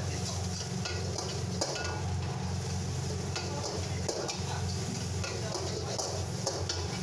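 Steel ladle stirring and scraping chopped onion, garlic and ginger frying in hot oil in a wok, with a steady sizzle and many scattered clicks of the ladle against the pan. A low steady hum runs underneath.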